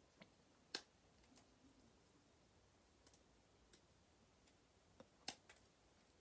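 Near silence with a few short, sharp clicks and light paper rustles as a roll of glue dots and a die-cut paper piece are handled; the two sharpest clicks come about a second in and near the end.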